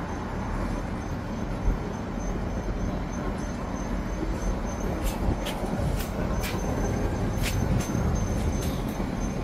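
Strong monsoon wind buffeting the microphone: a steady low rushing noise. From about five seconds in it is joined by a few sharp ticks, and a faint thin high whine sits underneath.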